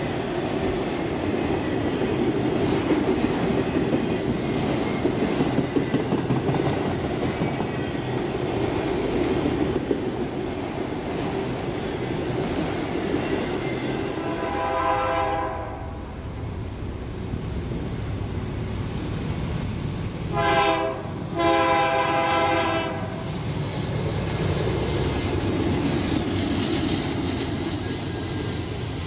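Freight train rolling past with steady wheel clatter on the rails. About halfway through, a diesel locomotive's air horn sounds a chord in one long blast, then after a pause a short blast and a longer one, and the rumble of the passing train returns.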